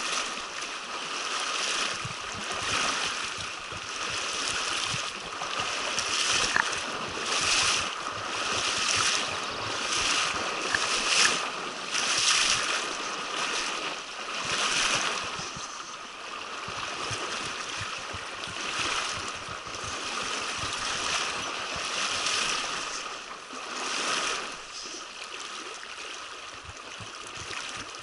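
Rushing water of a mountain trout stream, a steady hiss that swells and eases every second or so.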